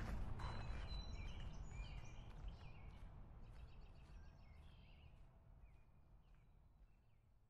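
Birds chirping in short, scattered calls over a low outdoor background noise, the whole steadily fading out.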